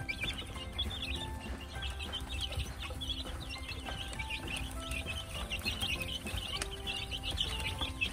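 A brood of two-week-old chicks peeping: many short, high chirps overlapping without a break. Soft background music runs faintly underneath.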